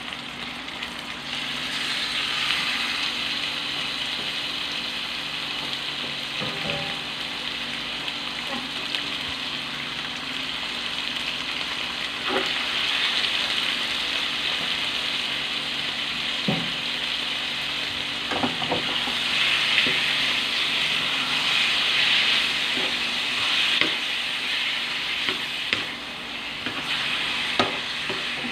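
Raw cubed pork sizzling in a hot wok over sautéed onion and garlic, the first searing stage of dinuguan. A wooden spatula stirs it, with a few short knocks and scrapes against the pan; the sizzle grows louder in the second half.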